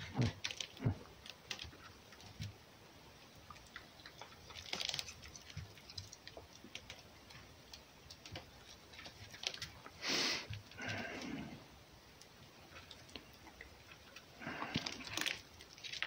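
A red fox taking food from a hand and eating: scattered small clicks and ticks of chewing and handling. There are a few short rustling noises, the loudest about ten seconds in and another near the end.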